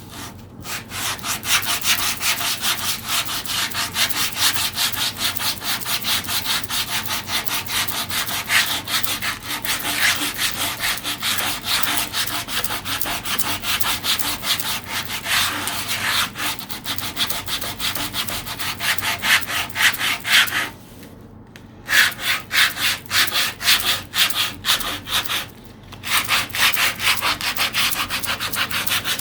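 Sandpaper rubbed by hand over wood in quick back-and-forth strokes, pausing briefly twice in the last third.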